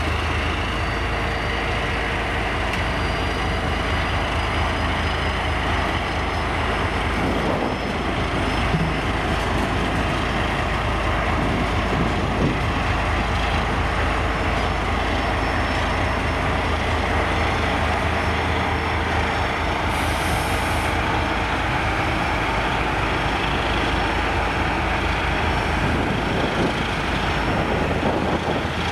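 Diesel shunting locomotive's engine running steadily while it hauls tank cars, a low rumble with a faint high whine over it. A short high hiss comes about twenty seconds in.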